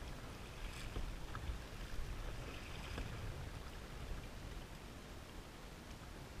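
A fishing kayak out on the water: faint water splashes and a few light knocks over a low, uneven rumble.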